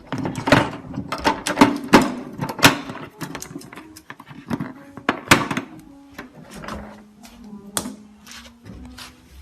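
Hard plastic parts of a new dehumidifier being handled: an irregular run of sharp clicks and knocks, with short low creaks in between.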